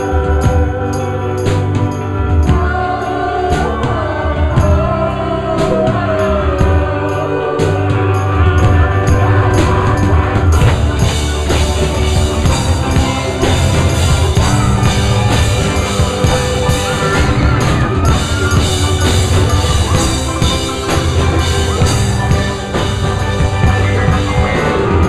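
A live band playing loudly: electric guitar and drums under several voices singing together. About ten seconds in the sound turns denser and brighter.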